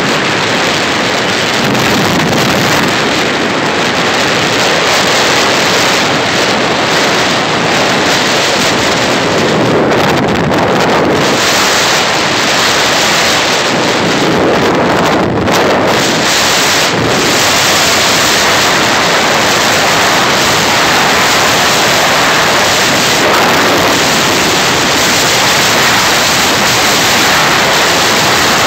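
Loud, steady wind rushing over the microphone of a vehicle moving along a road, drowning out any engine sound.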